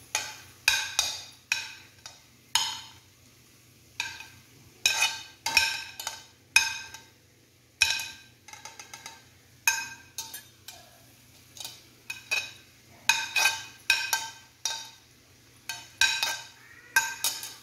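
A metal spoon clinking and scraping against a plate and the rim of a stainless steel kadai as fried okra and onion pieces are pushed into it: sharp clinks that ring briefly, coming irregularly, sometimes several in quick succession.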